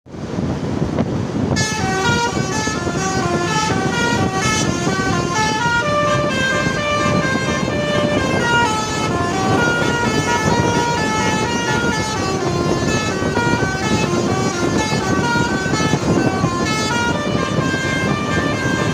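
Multi-tone 'telolet' bus horn playing a long, winding melody of short notes stepping up and down in pitch, starting about one and a half seconds in, over a steady low rumble.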